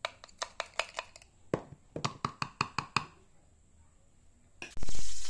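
Sharp plastic clicks and knocks, several a second for about three seconds, as the blade of a small pull-cord food chopper is lifted out and knocked against its bowl to clear ground chilli paste. Near the end, cooking oil in a wok starts sizzling loudly and suddenly.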